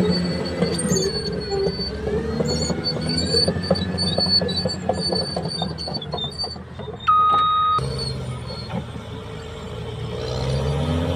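Caterpillar bulldozer running, its tracks squealing and clanking as it moves: the bad noise of a damaged idler and track rollers in the undercarriage. A short steady beep sounds about seven seconds in.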